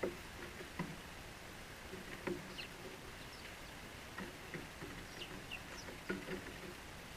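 House sparrows giving short, scattered chirps, with a few soft knocks among them, the loudest right at the start.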